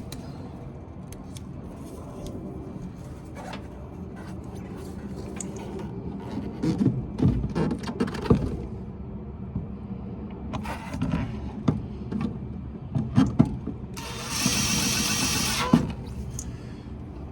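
Sheet-metal furnace parts knocking and clattering as they are handled and fitted, with a few sharp clicks. Near the end a cordless drill runs once for about a second and a half, driving in a screw.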